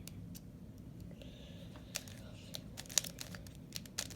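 Plastic clicks and rattles of a 3x3 Rubik's Cube's layers being turned, a few at first, then a quick run of clicks from about halfway, the sharpest about three seconds in.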